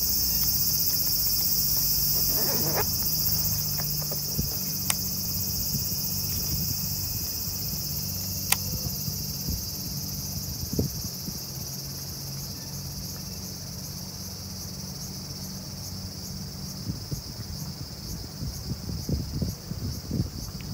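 Insects trilling in a steady high-pitched chorus that turns into a rapid even pulsing in the second half, over a low steady hum, with a couple of sharp ticks.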